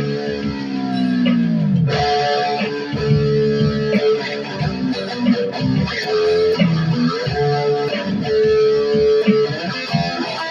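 Electric guitar with a Floyd Rose tremolo played solo, with no backing. A held chord slides steadily down in pitch over the first two seconds, a tremolo-arm dive, and is followed by riffs of picked single notes and short chords.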